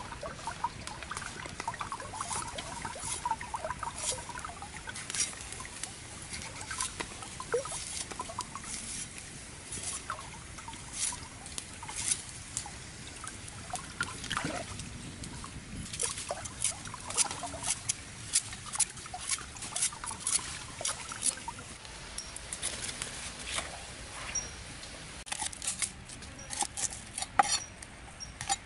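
Wood fire of burning twigs crackling under a wok of river snails, with many sharp, irregular ticks and pops over a low hiss. Near the end, a few knife chops on a wooden board.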